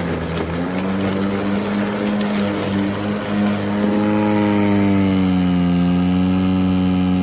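Ryobi 40V HP brushless 20-inch cordless push mower running as it cuts grass: a steady electric hum with a hiss of blade and clippings. The pitch dips briefly at the start, then drops slightly and settles lower past the middle.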